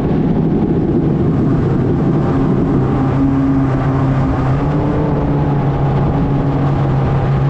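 Toyota 5K four-cylinder engine running steadily with a loud, aggressive exhaust note; its pitch settles slightly lower about two and a half seconds in.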